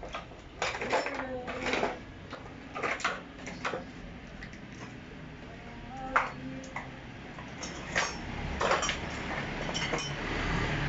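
Scattered light clicks and clinks of small hard objects being handled, with a few brief voices between them. A steady low rumble comes up near the end.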